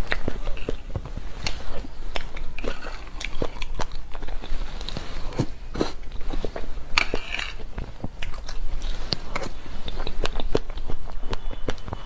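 Close-up eating sounds of soft cream cake: many short, wet mouth clicks and smacks while chewing. The plastic spoon scoops from the plate now and then.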